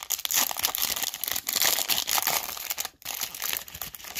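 Foil wrapper of a Wild Card Alumination trading-card pack being torn open and pulled apart by hand: a dense run of crinkling and crackling, with a brief pause about three seconds in.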